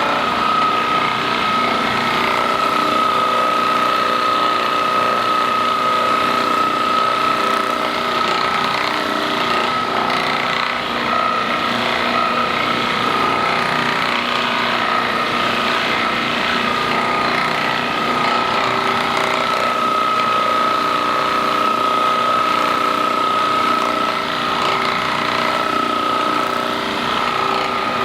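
Percussion massage gun running steadily against the body, its motor giving one continuous high whine.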